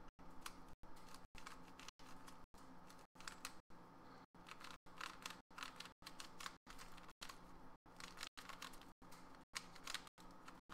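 Faint clicking and scraping of a YuXin 3x3 mirror blocks puzzle's plastic pieces as its layers are turned in quick, irregular moves, the first turns of the new cube out of the box.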